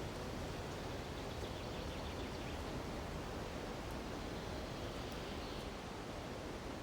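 Steady rushing of wind through conifer treetops mixed with the constant flow of a mountain river.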